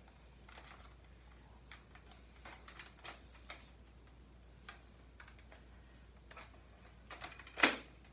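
Scattered light plastic clicks and rattles from a Nerf Rival Takedown pump-action blaster being worked to clear a jam caused by an off-brand foam round. A single louder, sharp clack comes near the end.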